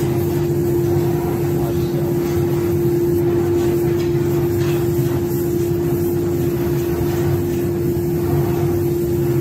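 Oxy-acetylene torch flame burning steadily as it heats a steel bar clamped in a vise, under a loud, unbroken shop hum.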